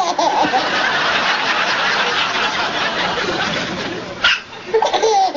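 Breathy laughing through most of it, then a single sharp baby hiccup about four seconds in, followed by a short bit of voice.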